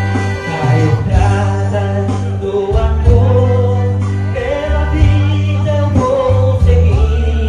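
Live band music: a steady heavy bass under a lead melody line.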